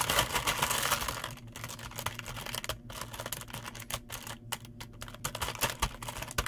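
Plastic Crayola markers clattering against each other and the sides of a plastic bin as a hand stirs them around. The clatter is densest for the first second and a half, then turns to sparser clicks.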